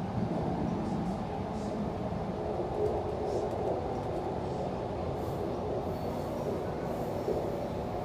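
Electric suburban passenger train running along the line: a steady rumble of wheels on rails, with a few faint clicks.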